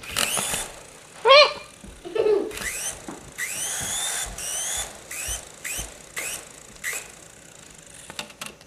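Small electric motor of a toy remote-control helicopter whining in a series of short bursts. Each burst rises in pitch as the throttle is pushed up, then drops off.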